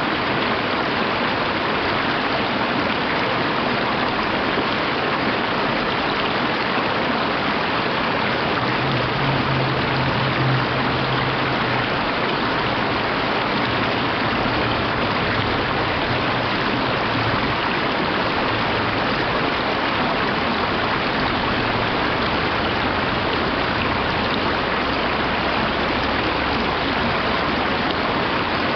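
Mountain stream rushing over rocks and small cascades: a steady, even sound of running water.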